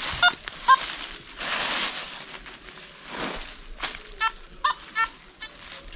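Footsteps crunching through dry leaf litter, a few separate steps. Over them, a few short high chirping calls near the start and a quick series again about four seconds in.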